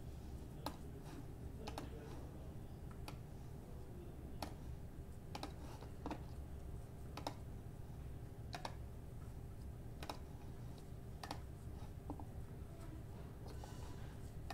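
Faint, scattered computer keyboard clicks, single keystrokes coming irregularly about once a second, over a steady low hum.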